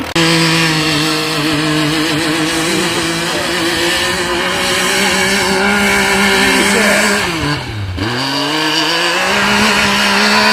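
Off-road vehicle's engine revving high and steady under hard load, climbing a hill in deep snow with a passenger aboard. The revs drop sharply about seven and a half seconds in, then pick back up and hold high again.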